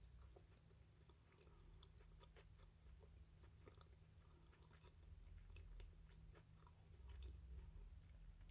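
Faint close-up chewing of food, with small wet mouth clicks scattered throughout.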